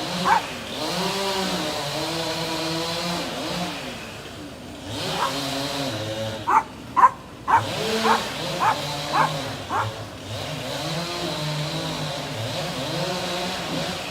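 An engine running steadily, its pitch rising and falling as the revs change. A dog barks about six times in quick succession near the middle.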